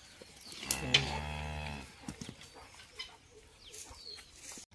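A freshly calved cow mooing once, a low call about a second long, calling for its newborn calf.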